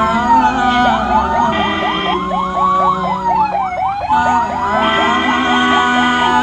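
Ambulance siren sounding in slow rising and falling wails over a faster yelping warble of about four chirps a second, with an engine rumbling underneath. A steady held tone breaks in twice, about one and a half seconds in and again near five seconds.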